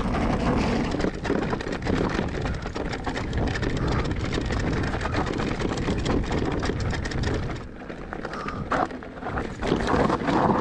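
Electric mountain bike riding over a rough, stony trail: a steady clatter of tyres on loose rock and the bike rattling, easing off somewhat near the end.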